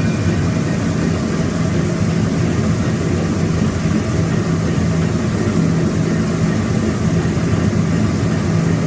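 Sweet potato washing machine running: a steady motor hum over an even rushing noise, unchanging throughout.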